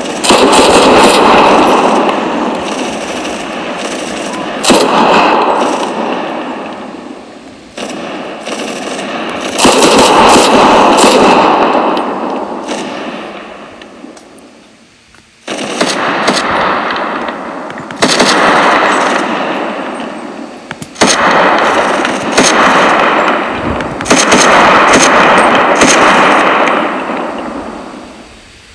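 Gunfire exchange: about eight loud bursts of shots, some rapid like automatic fire, each ending in a long echoing tail that fades over a few seconds.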